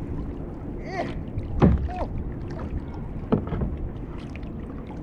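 A kayak on open water under a steady low hum, with a few short falling swishes or creaks against the hull; the loudest comes about one and a half seconds in.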